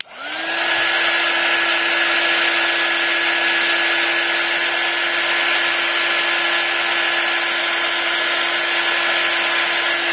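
A handheld heat gun is switched on and runs steadily, blowing hot air to soften the iPad screen's adhesive. There is a steady whine over the blowing, which rises as the motor spins up in the first moment.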